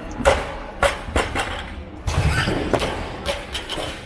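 Barbell plates and weights knocking and thudding on the training hall floor: several sharp knocks in the first second and a half, then a heavier, deeper thud about two seconds in.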